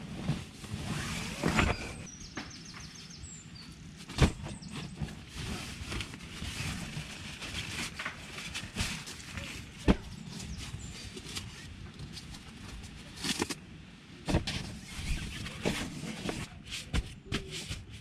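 Camping gear being handled on a nylon tent floor: rustling and scattered knocks and clicks as a backpack is unpacked and a folding foam sleeping pad is unfolded and pressed flat, with two sharper knocks about 4 and 10 seconds in.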